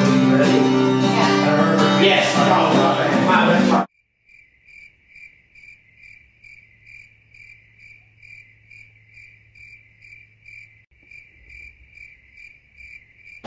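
Music for about four seconds, cut off abruptly; then a faint cricket chirping steadily, about two chirps a second.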